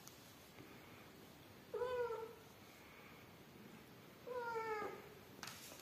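A cat meowing twice, about two seconds in and again about four and a half seconds in, each a short call that falls in pitch.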